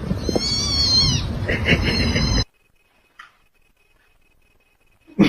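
A cat meowing: one high-pitched drawn-out meow that rises and falls, then a shorter rougher call, after which the sound cuts off abruptly to near silence.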